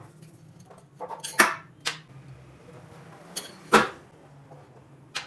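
A handful of short, sharp metallic clicks and knocks as coil springs are drawn out of a Honda CG125's front fork tubes, metal tapping on the steel tubes. The loudest knock comes a little under four seconds in.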